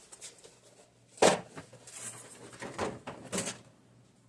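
Handling noise from working on a small engine: one sharp knock about a second in, then a brief scrape and two lighter clunks.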